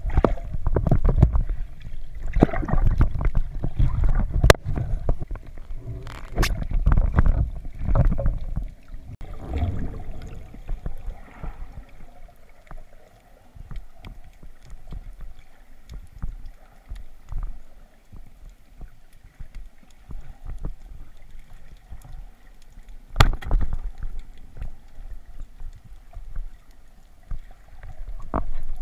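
Underwater sound of a freediver spearfishing: low, muffled rumble and rushing of water over the camera housing while swimming, with a few sharp clicks. It grows quieter about a third of the way in, and one loud click comes near the end.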